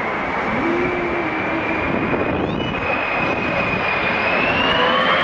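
Airplane passing low on its landing approach: steady engine noise with a high whine that slowly rises in pitch, growing slightly louder.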